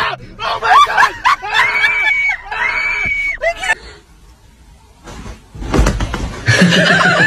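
High-pitched squealing voice calls, two of them held and bending in pitch, about two and three seconds in. They are followed by a noisier, mixed burst of sound near the end.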